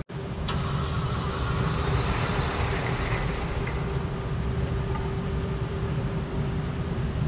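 Steady machine running with a constant hum: an electric range target carrier bringing the paper target back up the lane, over the range's ventilation. A single light click comes about half a second in.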